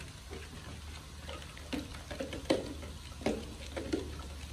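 A steel ladle knocking lightly against a steel pot as a mixture is worked by hand: four or so scattered clinks over a low steady hum.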